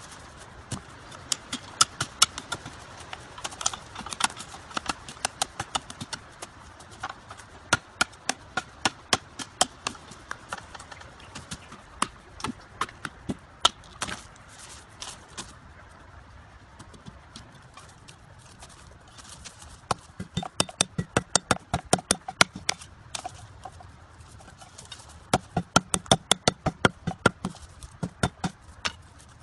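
Machete blade striking bamboo in runs of sharp chops, a few a second, with short pauses between runs, as a bamboo pole is cut and split into strips.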